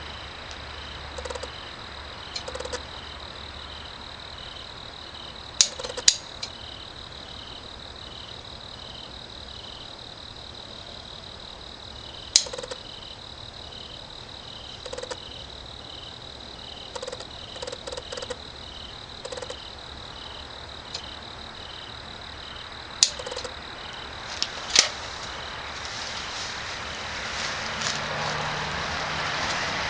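High chirping of insects, pulsing evenly about twice a second over a steady high whine, with a few short low calls. A handful of sharp clicks cut in now and then, and a hiss builds near the end.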